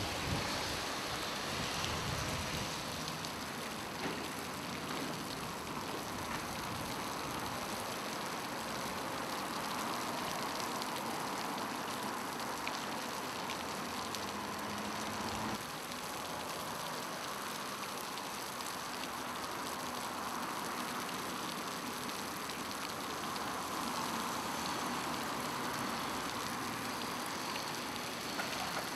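Fountain water falling in a curtain and splashing into its stone basin, a steady rush, with road traffic passing behind it and swelling now and then.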